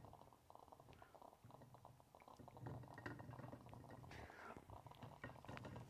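Faint bubbling and simmering from a stovetop espresso maker's boiler, still under pressure, with a steady low hum underneath.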